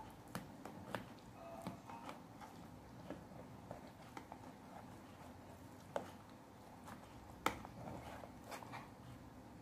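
Metal spoon scraping and tapping against a metal baking tray as it cuts through baked, cheese-crusted spaghetti: a scatter of faint scrapes and clicks, with two sharper clinks in the second half.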